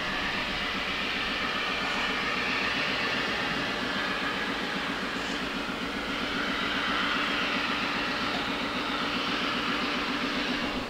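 Diesel locomotive hauling a train at low speed, its engine running steadily with an even hiss over it as the train approaches.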